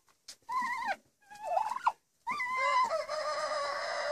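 Domestic turkey hens calling while squabbling: two short calls in the first two seconds, then a longer call from about halfway through that drops in pitch and carries on.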